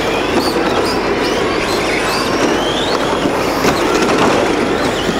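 Several electric radio-controlled model cars racing at once, their motors whining in short rising-and-falling swoops as the throttle is worked, over a steady rumble of wheels rolling on the carpet track.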